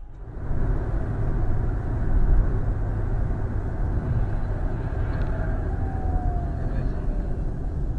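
Steady road and tyre rumble of a moving car, heard from inside the cabin by a dash camera, with a faint falling tone about midway.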